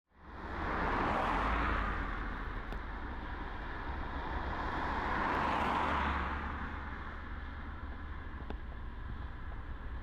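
Distant road traffic: a steady low rumble with two vehicles swelling past, about one and five seconds in.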